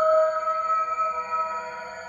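Synthesized alien sound effect: a sustained, eerie chord of several steady ringing tones, like a singing bowl or sonar drone, swelling slightly about the start and easing off toward the end.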